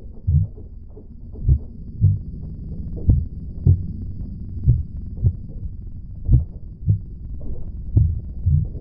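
Slow heartbeat sound effect: low double thumps, lub-dub, repeating about every one and a half seconds over a steady low drone.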